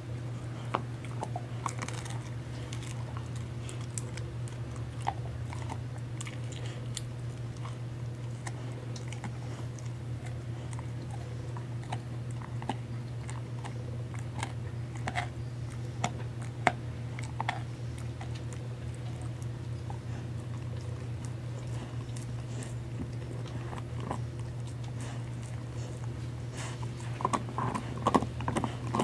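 A husky biting and crunching a Purina Busy Chewnola chew treat. Scattered small crunches give way to a dense run of loud crunches about two seconds before the end, over a steady low hum.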